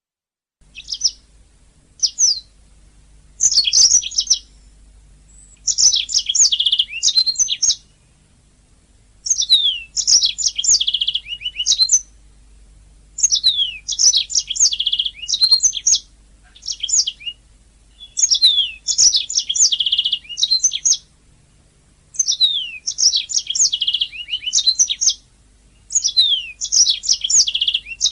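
Domestic canary singing: song phrases of rapid trills and falling whistles, each lasting from about a second to a few seconds, with short pauses between, starting just under a second in. A faint steady low hum lies under the song.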